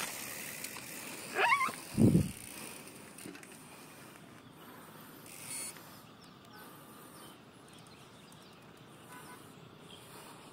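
A short wavering squeal and then a lower falling tone about a second and a half to two seconds in. After them, faint open-air quiet with a few scattered small chirps of birds or insects.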